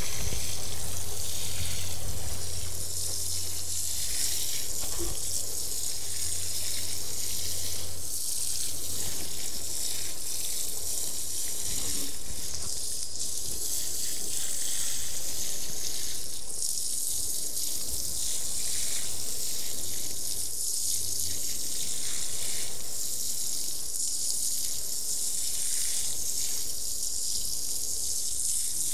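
Water pouring and spattering steadily onto freshly sown vegetable beds, watering the seeds in.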